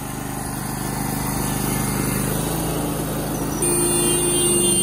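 Small gasoline engine of a tracked mini dumper running steadily, picking up slightly. About three and a half seconds in, a high steady whine joins as a control lever is worked, typical of the hydraulics coming under load.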